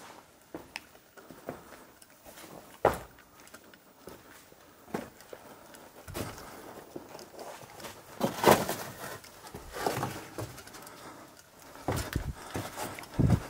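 Irregular footsteps and scuffs on a mine tunnel floor, with a few sharper knocks: one about three seconds in, a cluster around eight to nine seconds, and more near the end.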